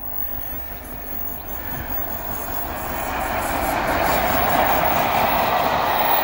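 LNER A4 Pacific steam locomotive 60007 'Sir Nigel Gresley' and its coaches passing on the line. The rumble of the train grows louder over the first few seconds as the engine nears, then holds steady as the carriages go by.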